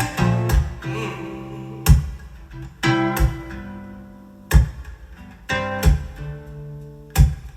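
Music played through a Bang & Olufsen BeoSound Balance wireless speaker: an instrumental passage of sharp guitar strums every second or so, with low held bass notes ringing between them.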